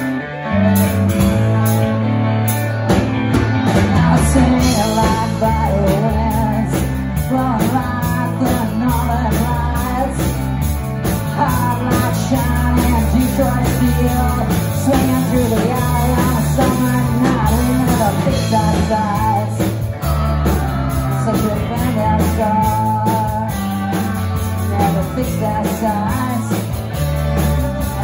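Live rock band playing loud through a PA: two electric guitars, bass guitar and drum kit in a rock-and-roll groove, with the full band coming in louder about half a second in.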